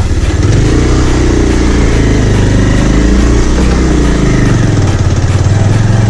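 Motorcycle engine running under way, its pitch dipping and then climbing back up about halfway through, over a steady rush of noise.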